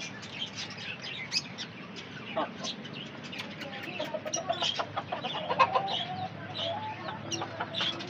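Chickens clucking, mostly in the second half, as a rooster and a hen step out of their coop. Small cage birds chirp throughout.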